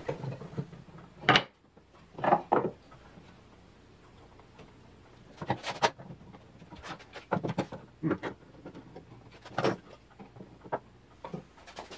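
Scattered knocks and clicks of wooden frame parts and metal F-style bar clamps being handled and set in place on a workbench, about a dozen separate short sounds with quiet gaps between them.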